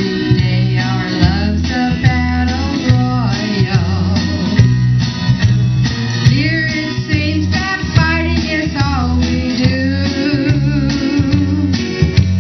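A woman singing into a handheld microphone over a recorded backing track with guitar and bass, both played through outdoor PA speakers.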